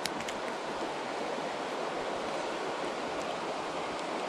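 Steady rush of flowing creek water, even and unbroken, with a faint click near the start.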